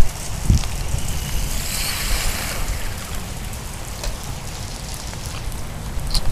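Steady splashing, rushing water noise with a low rumble underneath and scattered small clicks.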